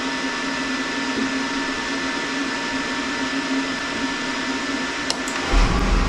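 Beckett oil burner with a newly fitted blower motor running with a steady whir and hum. About five and a half seconds in it fires: a sudden deep rumble of the flame starts. The burner lights and keeps running without tripping out.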